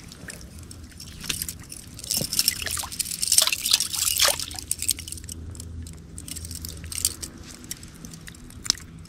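Water splashing and dripping as a fish is lowered into shallow water on a metal chain stringer, with the chain clinking. The splashes and clinks come in a scattered cluster, busiest in the first half, then die down to small drips.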